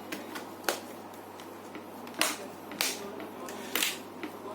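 Laptop keyboard being pressed and fitted into the chassis: a few sharp, irregularly spaced clicks and taps over a faint steady hum.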